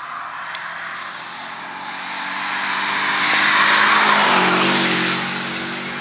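Subaru Impreza rally car's flat-four engine at speed, approaching and growing louder. The car passes close about four seconds in, with engine and tyre noise at their loudest, then pulls away with a steady engine note.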